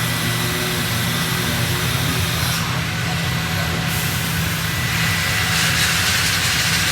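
Steady machinery noise of a robotic sanding cell running: a constant deep hum with a hiss over it. The high hiss drops out for about a second near the middle, then comes back.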